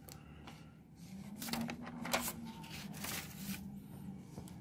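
Paper rustling and sliding as a handwritten sheet is moved off a textbook page, with a few soft scrapes, busiest in the middle.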